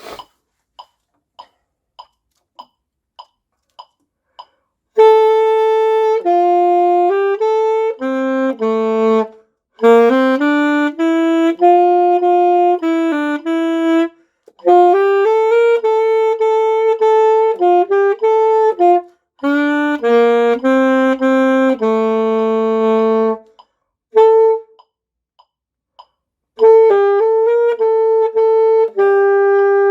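A beginner's alto saxophone playing a simple melody in phrases with short breaths between them, the longest pause about three quarters of the way through. For the first five seconds, before the playing starts, only a steady ticking is heard, like a metronome.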